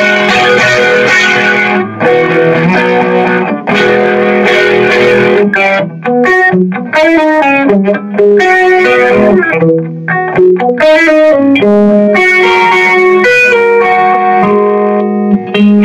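Alder-bodied electric guitar played through an amplifier. It starts with ringing chords held for a few seconds, then moves into quick single-note phrases and runs. The tone has a full midrange.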